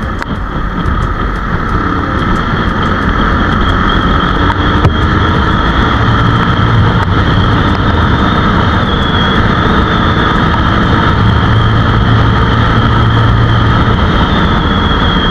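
Motorcycle engine running steadily while riding, growing louder over the first couple of seconds and then holding steady.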